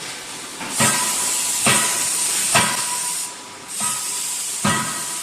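CNC hydraulic closed-die forging hammer striking hot metal in a run of blows, about one a second, with a loud hiss through most of the run that stops briefly about three seconds in.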